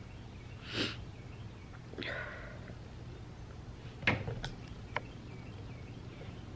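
A person sniffling twice, a short sniff about a second in and another about two seconds in, as after crying. A sharp click about four seconds in, followed by a couple of smaller clicks.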